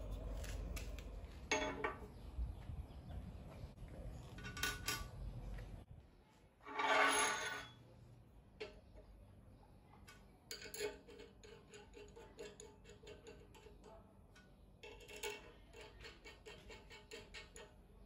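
Steel workshop parts clinking and knocking as flat bars and small bolts are handled on a steel table, with a low steady hum that stops about six seconds in. A louder rush of noise lasts about a second, and runs of quick light metallic clicks come later as a bolt is fitted into the bar.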